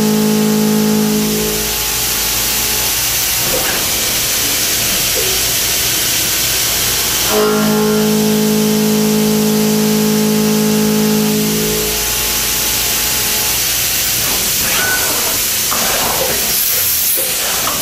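CNC machining center cutting metal under flood coolant, with the coolant spray giving a steady hiss. A steady pitched hum from the cut runs twice, stopping about a second and a half in and again from about a third of the way to two-thirds through. A few short clicks come near the end.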